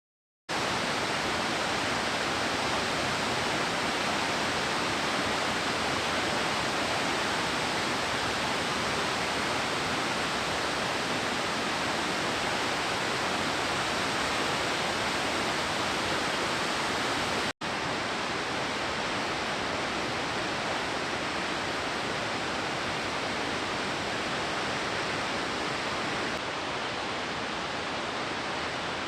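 Steady, even rush of a large waterfall, Nugget Falls, heard close up; it cuts in suddenly about half a second in, drops out for an instant about two-thirds of the way through, and is a little quieter near the end.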